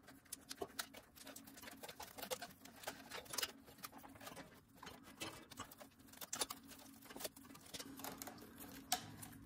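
Plastic spiral cable wrap being unwound by hand from a bundle of wires: faint, irregular clicks and rustles of plastic.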